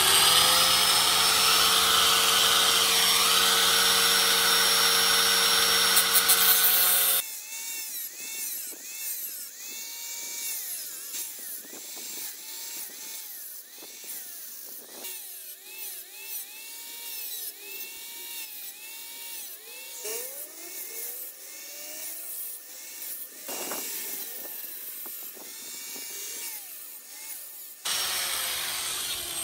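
Angle grinder with a cutoff wheel running and cutting into a bent metal bracket, loud and steady for about seven seconds, then cutting off suddenly to a much quieter stretch of short repeating rising-and-falling tones. A loud grinding noise starts again near the end.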